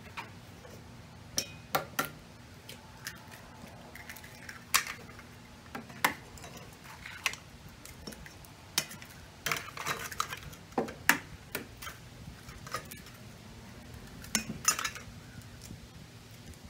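Eggs being cracked against the rim of a stainless steel mixing bowl: sharp, separate taps and clinks at irregular intervals as one egg after another is broken.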